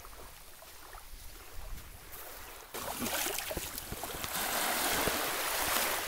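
Shallow seawater washing and lapping over sand at the water's edge, heard close up, louder and hissy from about three seconds in.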